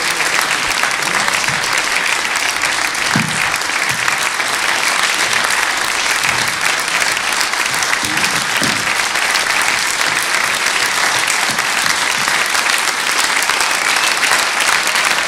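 A large cinema audience applauding steadily, a dense, sustained ovation.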